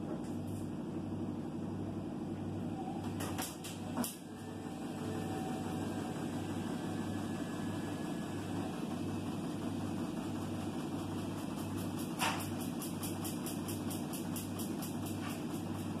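Indesit washer-dryer running, a steady hum with a low throb that pulses about one and a half times a second. Sharp clicks come twice at about three to four seconds in and once around twelve seconds, followed by a run of faint fast ticks.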